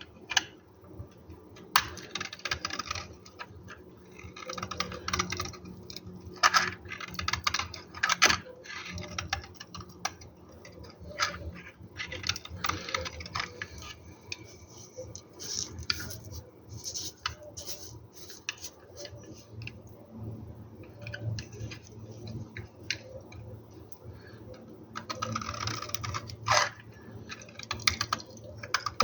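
Knife cutting through soap into cubes: crisp, crackly clicks coming in irregular clusters.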